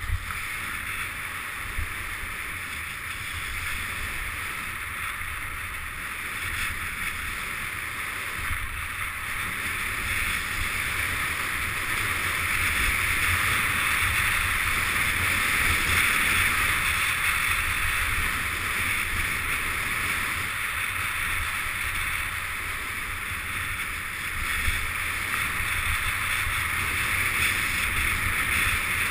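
Skis hissing and scraping over groomed snow during a downhill run, with wind buffeting the camera microphone; the rush grows louder through the middle of the run and eases slightly later.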